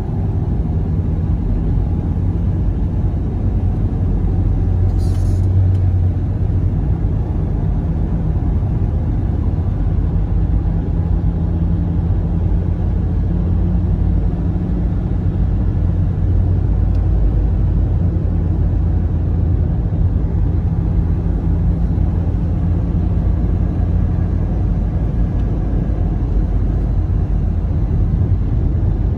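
Steady low rumble of a car driving at city speed, engine and tyre noise heard from inside the cabin.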